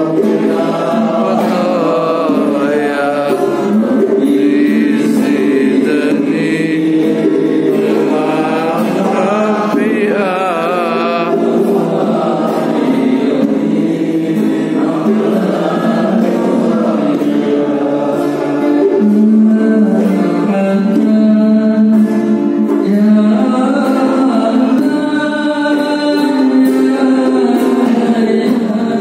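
A group of men singing a devotional song together, accompanied by a kendang hand drum and an acoustic guitar.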